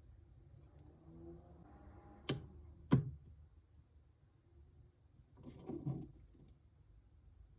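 Two sharp clicks about a second apart, then a brief rustle, as of a box or packaging being handled.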